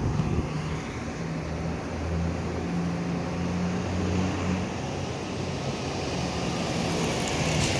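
Street traffic noise with a motor vehicle's engine running, a steady low hum that swells and eases.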